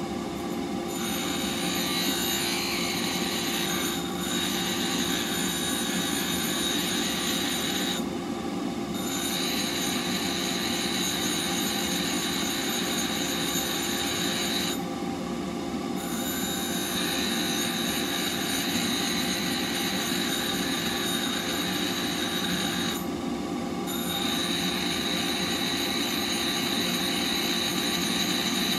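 Bench grinder running steadily while a steel woodturning blade is ground against its white wheel, giving a harsh grinding hiss with sparks. The grinding noise drops out briefly a few times as the steel is lifted off the wheel, leaving the motor's hum.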